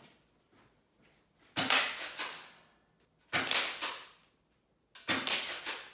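Airsoft gun fired three times, about one and a half seconds apart, each shot a sharp crack that fades away over about a second.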